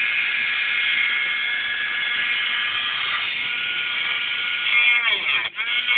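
High-speed rotary tool with a cutting disc, whining steadily at a high pitch. From about five seconds in, the pitch dips and recovers over and over as the disc bites into the mobile phone's casing.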